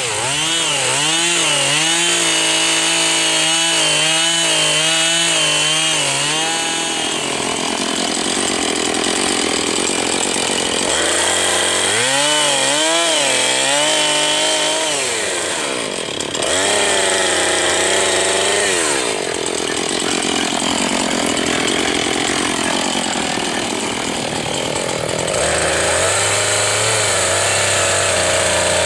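Petrol chainsaw cutting lengthwise into a fallen tree trunk, its engine pitch rising and falling over and over as the saw is worked into the wood.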